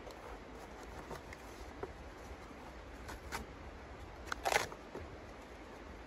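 Small clicks, crackles and scratches of hands working kindling inside the firebox of a steel wood stove, with one louder scraping crackle about four and a half seconds in.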